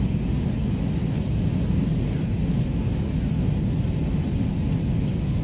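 Airliner cabin noise in flight: a steady low rumble of engines and rushing air, heard from a window seat.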